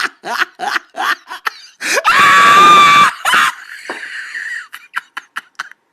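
A person laughing hard: quick bursts of laughter about four a second, then a loud high-pitched shriek held for about a second, then a wheezing, breathless laugh with a few short gasps near the end.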